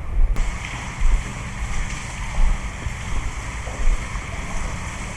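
Water running and sloshing in a concrete stormwater drain tunnel, under a heavy low rumble that swells about every second or so. A brighter hiss cuts in suddenly just after the start.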